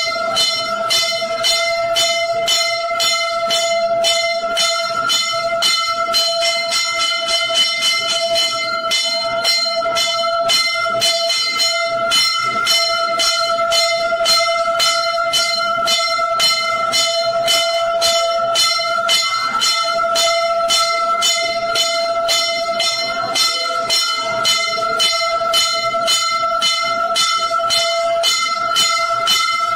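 Temple bells ringing continuously for aarti, struck rapidly at about four strokes a second over a steady ringing tone.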